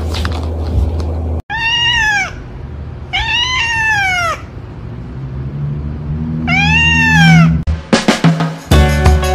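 A cat meowing three times, each a long call that rises and then falls in pitch, over background music.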